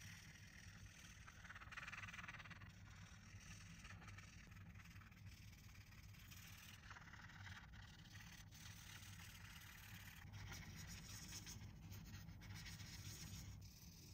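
Near silence: a low steady hum with soft scraping and rustling in places, about 2 s in, around 7 s and again from about 10 to 13 s.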